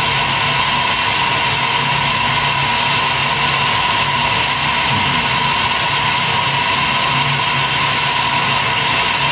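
Tap water running steadily into a sink, a constant rushing hiss with a faint steady tone in it.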